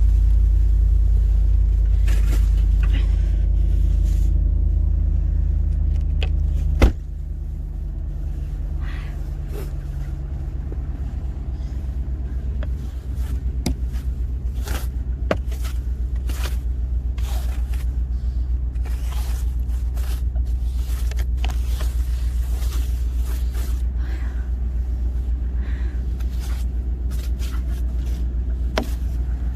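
A vehicle engine idling with a steady low rumble. About seven seconds in there is a single sharp knock, after which the rumble is quieter. From about halfway on come repeated short scraping strokes of a snow brush clearing snow off the vehicle.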